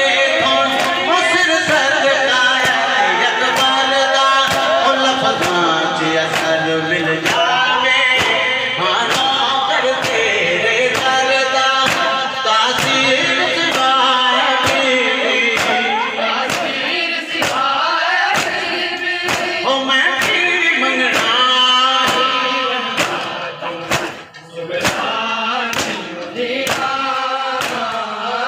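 Noha sung by a male reciter over a microphone, with men's voices chanting along, over a steady rhythm of sharp slaps from chest-beating matam at about one strike a second. Near the end the singing briefly falls away while the beating goes on.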